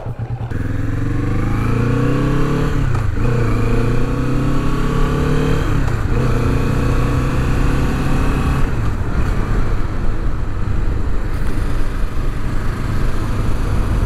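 Kawasaki Vulcan S 650's parallel-twin engine pulling away and accelerating up through the gears. Its pitch climbs in each gear and drops at three upshifts, roughly every three seconds, before it settles into a steadier cruise.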